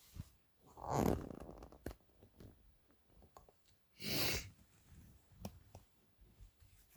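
A man sneezing, two loud bursts about a second in and about four seconds in, with light clicks of handling between.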